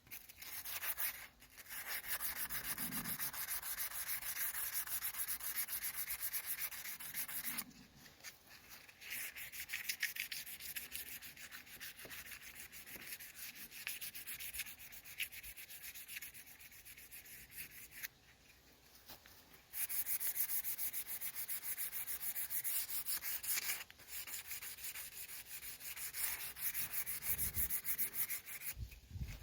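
320-grit wet/dry sandpaper rubbed rapidly back and forth over cured gelcoat on a fiberglass boat hull, a fast scratchy rasp. It comes in long runs with brief pauses, about 8 and 18 seconds in and near the end.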